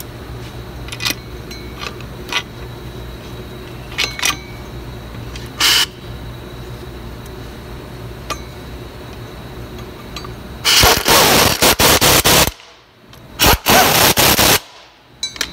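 A few light metal clinks and knocks over a steady low shop hum. Then an air tool runs loudly in short bursts: one of about two seconds from around eleven seconds in, another of about a second soon after, and a brief one at the very end.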